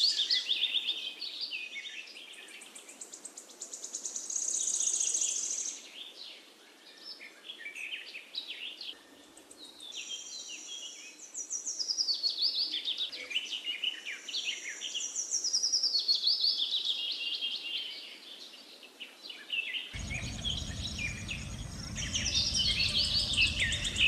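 Songbirds singing: repeated high, falling trills and chirps in phrases a few seconds long with short gaps. About twenty seconds in, a low rumbling noise joins under the birdsong.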